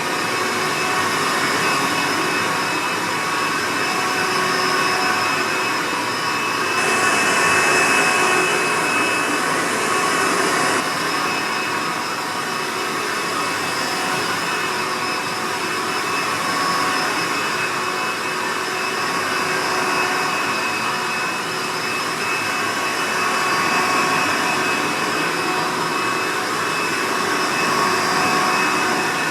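Hoover Legacy Supreme upright vacuum cleaner's motor running steadily with a whine. No drive belt is fitted, so the brushroll is not turning. A brighter, hissier stretch runs from about seven to eleven seconds in.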